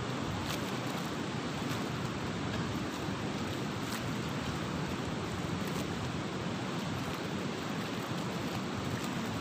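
Steady rush of a fast-flowing river mixed with wind, with a few faint clicks.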